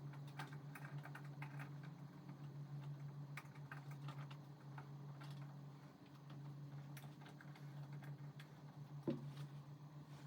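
Faint, irregular light clicks and taps of small hand tools and bolt hardware being handled, over a steady low hum, with one sharper knock about nine seconds in.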